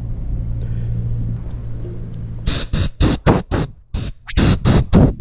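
Compressed air blasting from the end of a green air hose fed by a freshly filled Quincy QT-54 shop compressor tank, in about ten short, loud hissing bursts in quick succession from about halfway through, over a steady low hum.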